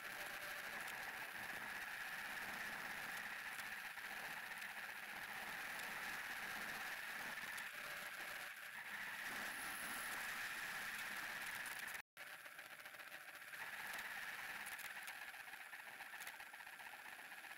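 Steady tyre and wind noise with light rattling from a road bike riding up a rough lane, picked up by the bike-mounted camera. The sound cuts out for a split second about twelve seconds in.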